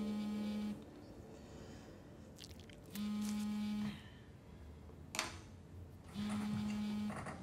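Mobile phone on vibrate buzzing against a tabletop with an incoming call: three steady buzzes, each about a second long and about three seconds apart. A short sharp click about five seconds in.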